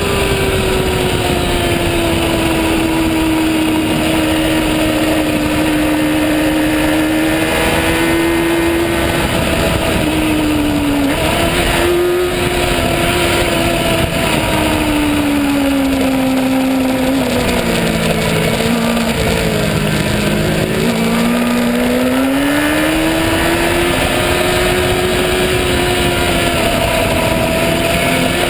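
Racing motorcycle engine running hard at high revs, heard from on board over a steady rush of wind noise. The engine note holds fairly level, then drops in pitch about two-thirds of the way through and climbs again as the bike accelerates.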